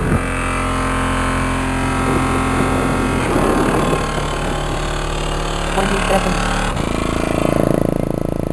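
Car-audio subwoofers playing sustained bass at competition level during an SPL metering run, one steady deep tone with many overtones. About seven seconds in, the deepest bass cuts off and a muffled mid-range rumble carries on.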